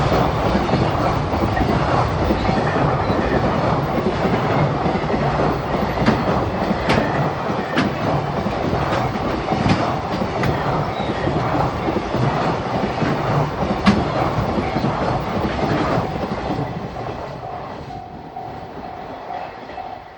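Freight train hauled by an EH500 electric locomotive rolling through a level crossing, wheels clattering and clicking over the rail joints, while the crossing's warning bell rings on. The train noise fades from about three quarters of the way through, leaving the bell's repeated dings.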